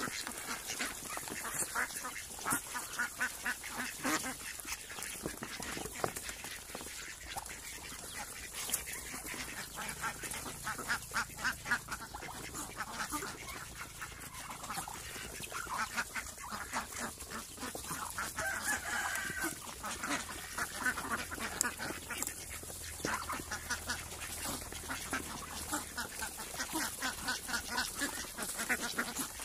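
A flock of domestic ducks, Muscovy and mallard-type, dabbling at wet grain mash in plastic basins: a constant rapid clatter of bills in the wet feed, with scattered quacking.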